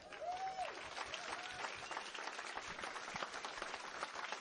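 Audience applauding, with a short cheer rising and falling twice near the start.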